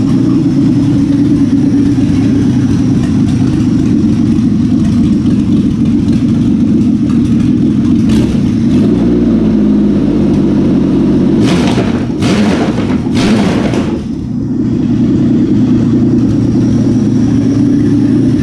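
A Buick 3.8 litre V6 running on an engine stand outside the car, off a standalone wiring harness. It runs steadily, with three short, hissier bursts a little past halfway.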